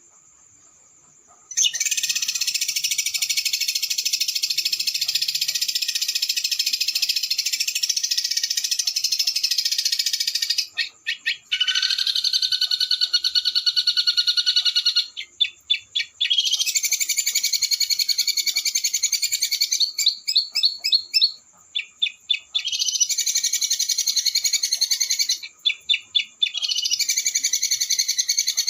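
A small songbird's fast, high-pitched rolling trill, sung in long phrases of several seconds. The phrases are separated by brief pauses and by short runs of sharp, clipped notes.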